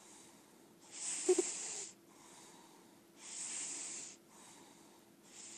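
A lilac point Siamese cat snoring in her sleep: airy breaths about every two seconds. The first, about a second in, catches in a short snort; a softer breath without the snort follows in the middle, and the next one starts near the end.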